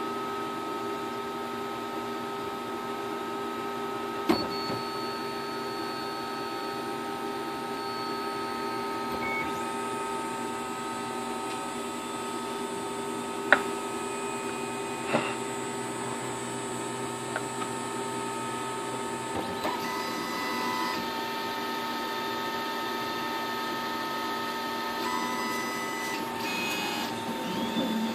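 MakerGear M2 3D printer running, a steady machine whine made of several constant tones from its motors and fans. The whine shifts in character about a third and two thirds of the way through. A few sharp clicks stand out.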